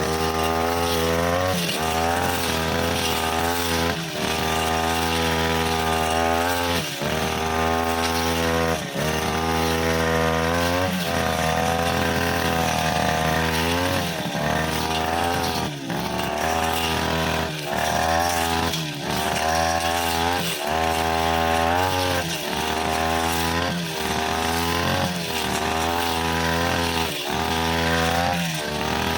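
Brushcutter engine running at high speed while its blade cuts thick grass. The engine note dips and recovers every second or two as the blade bites into the grass and clears it.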